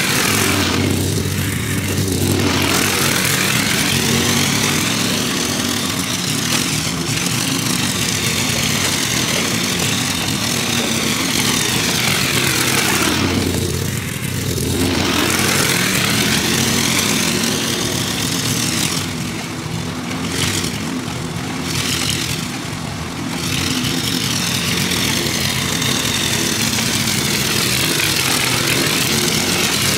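Gas walk-behind lawn mower's small engine running steadily under load while cutting long grass. It grows quieter for a few seconds around twenty seconds in as the mower moves off, then comes back up as it returns.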